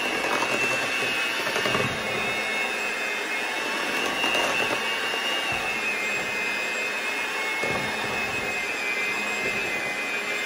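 Electric hand mixer running steadily with a high whine, its beaters churning through strawberry cake batter in a glass bowl.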